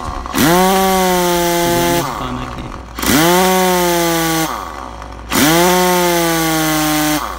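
Large pneumatic impact wrench, fed by an air hose, running free with no load in a test run on its stand. It is triggered three times; each run is about one and a half to two seconds long, with the pitch rising quickly to a steady high hum and then cutting off.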